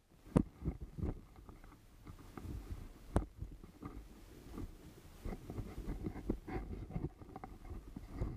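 Rubbing and rustling noise against the camera's microphone, with a low rumble and scattered small clicks, and two sharp knocks about half a second and three seconds in.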